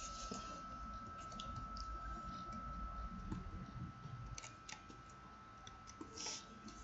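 Computer keyboard keys clicking faintly and slowly as digits are typed, a few separate key presses spread over several seconds, over a faint steady background tone.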